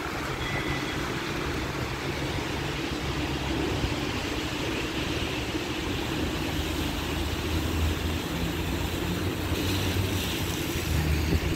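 Wet city-street ambience in the rain: a steady hiss of rain and tyres on wet road, with a low traffic hum underneath.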